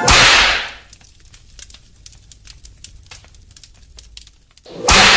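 Title-card sound effects: a loud whoosh-hit that dies away over most of a second, then a few seconds of sparse crackling like burning embers, then a second whoosh swelling up near the end.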